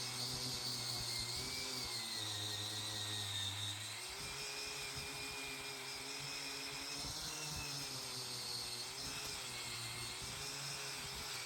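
Small power tool running under changing load, its motor pitch sagging and recovering every second or two, while it strips paint from a knife handle.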